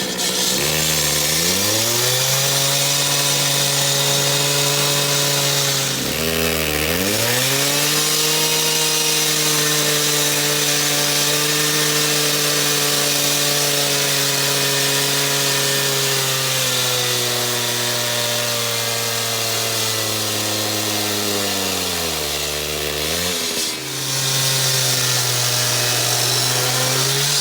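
Concrete saw cutting into a concrete slab: the blade grinds with a high hiss over the steady motor note. The motor's pitch drops sharply and climbs back three times, near the start, about six seconds in and near the end, as the blade loads up in the cut.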